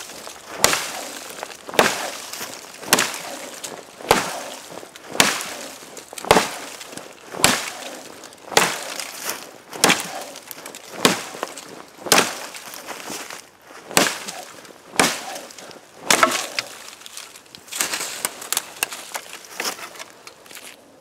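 A mini parang from the Anika workshop chopping a frozen ash sapling about 2.5–3 cm thick: sharp blade strikes into the wood, about one a second, some fifteen chops, then a run of smaller cracks near the end as the stem gives way. The hard frozen ash does not cut easily.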